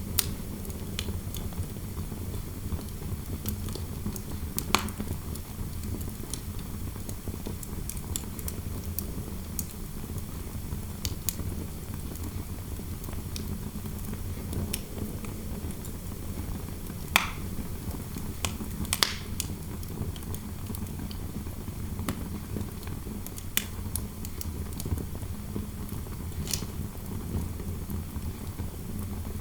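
Wood fire in a fireplace crackling, with scattered sharp pops (two of the loudest about two-thirds of the way through) over a steady low rumble of fire and interior wind noise.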